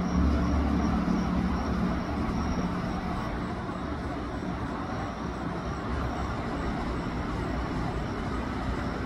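Steady road-vehicle noise: a low rumble, strongest in the first two to three seconds, over a steady hiss.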